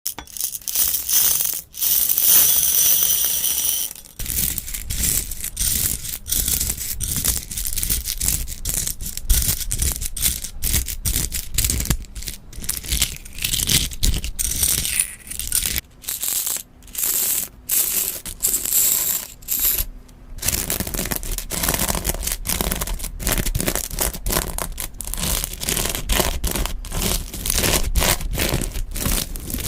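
Slime being squeezed and poked by hand, giving dense, fast crackling and popping clicks. The texture changes abruptly about four seconds in and again about twenty seconds in.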